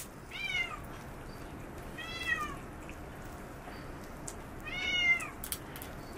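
Domestic cat meowing three times, each short meow rising then falling in pitch, the last one the loudest.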